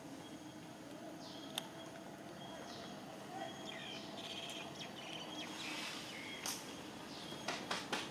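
Faint outdoor ambience with a few short, high, downward-sweeping chirps and a single sharp click about a second and a half in; a quick run of clicks begins near the end.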